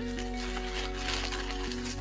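Background music with held notes that step to a new pitch every half second or so.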